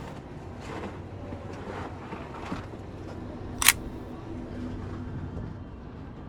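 Sony a6400 mirrorless camera's shutter clicking once, sharply, a little past halfway, with a few fainter clicks earlier, over steady low background noise.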